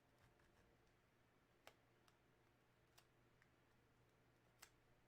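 Near silence broken by about four faint clicks, from a blade tip and fingers working at the edge of a sealed rip card.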